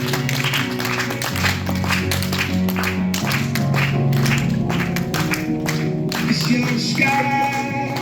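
Recorded pop music with a steady beat and bass line.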